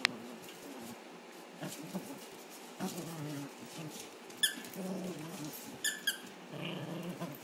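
Dog's squeaky carrot toy squeaking in short, sharp squeaks as a miniature pinscher puppy bites and tugs on it: once at the start, once about four and a half seconds in, and twice in quick succession about six seconds in.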